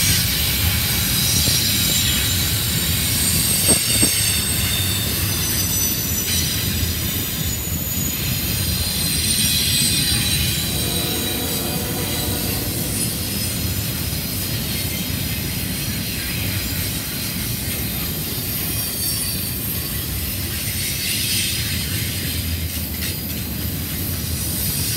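A CSX double-stack container freight train passes with a steady rumble of wheels on rail. High-pitched wheel squeal comes and goes, and there is a single sharp clank about four seconds in.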